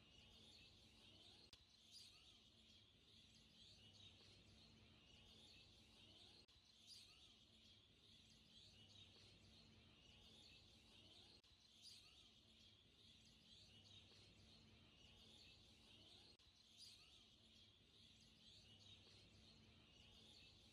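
Near silence: a very faint, even high hiss with small chirps and faint ticks every few seconds.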